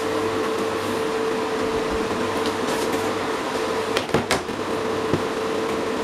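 Steady background hum and hiss, with a faint steady tone running through it, and two short clicks about four seconds in.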